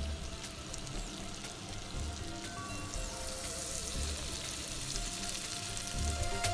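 Butter sizzling as it melts and foams in a hot frying pan, a steady fine crackle, with background music playing quietly.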